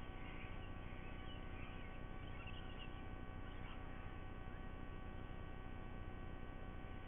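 Steady electrical hum with a low rumble, carrying through throughout, and faint, high, wavering bird chirps during the first four seconds or so.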